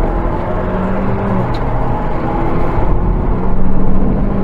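Car engine and road noise heard from inside the cabin while driving on a highway: a steady low rumble and tyre hiss with a droning engine note that comes and goes.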